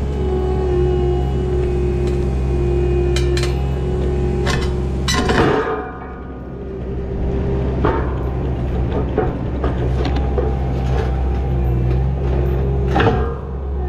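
Skid steer's engine running steadily while its steel pallet forks clank and scrape against rock. Several sharp metal knocks come through, the loudest just after five seconds. The engine sound dips briefly around six seconds and then comes back up.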